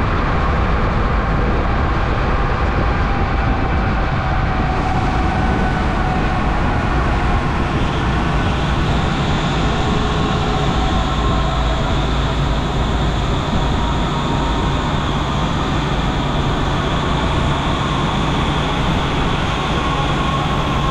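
Henschel FM1200 high intensity mixer running empty, its impeller spinning at speed in the open stainless steel bowl: a steady mechanical whir with several high steady tones over a constant rumble.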